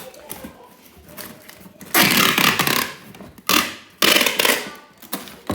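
Handling noise close to the microphone: three loud bursts of scraping and rustling, about two, three and a half and four seconds in, the first lasting nearly a second, over fainter scraping.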